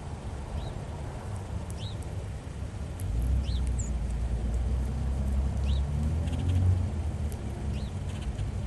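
A bird calling with short, high chirps about every two seconds, over a low rumble from a vehicle that grows louder about three seconds in, then eases off near the end.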